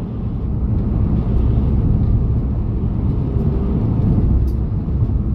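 Steady low road and engine rumble inside the cabin of a 2019 Ford Transit van cruising at about 50 mph.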